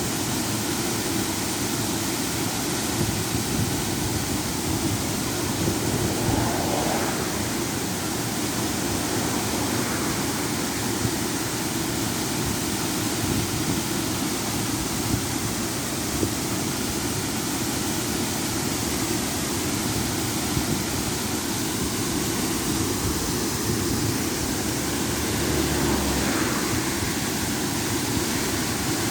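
Small river waterfall: water pouring and splashing in a steady, unbroken rush.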